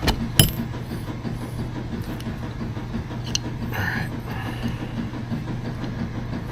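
A steady low hum in the workshop, with a few sharp clicks of small metal parts being handled. The loudest click comes about half a second in. A short squeak or murmur follows around four seconds in.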